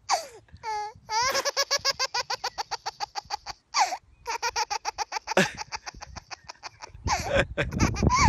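A baby belly-laughing in long runs of quick, high-pitched pulses, with a short squeal about a second in. Near the end an adult laughs along over a low rumble on the microphone.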